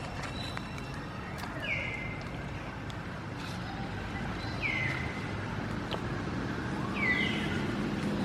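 Short high-pitched animal calls, each falling in pitch and then holding briefly, repeating about every two to three seconds over a steady low rumble.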